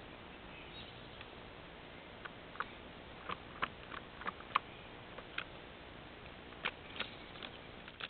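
Squirrel's claws ticking and scratching on a wooden board as it moves about: a dozen or more short, sharp, irregular clicks over the trail camera's steady microphone hiss.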